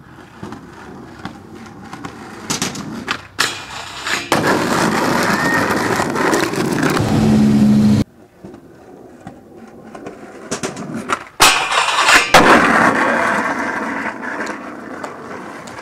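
Skateboard wheels rolling on concrete, growing louder as the board comes near and stopping abruptly at a cut about halfway through. Then another run: sharp clacks of the board about 11.5 and 12 seconds in, and rolling that fades away. The board's wheels run on busted bearings.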